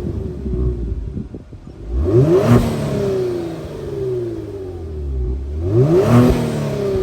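Kia Stinger's 3.3-litre twin-turbo V6, with stock exhaust and Injen intakes, revved twice: each time the engine note climbs quickly and then falls away more slowly.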